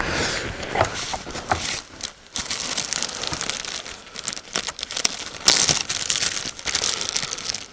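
Plastic wrapper crinkling and tearing as a packaged snack is handled and opened, with rapid irregular crackles throughout.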